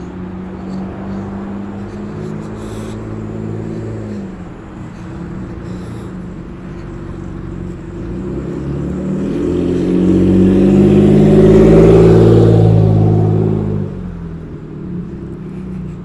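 A car engine running close by. It hums steadily, then grows louder over several seconds to a peak about three-quarters of the way through, and falls away suddenly soon after.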